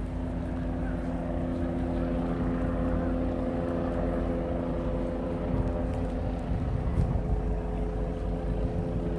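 Diesel locomotive horn sounding a long, steady multi-note chord from down the track, over a low rumble.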